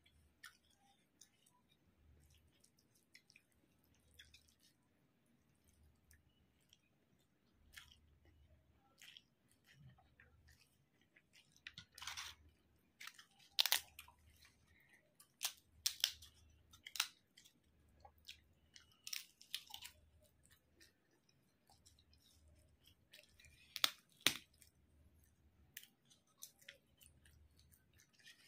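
Close-up chewing of rice and curry, broken by sharp crunches of crisp papad being snapped and bitten, loudest and most frequent around the middle of the stretch.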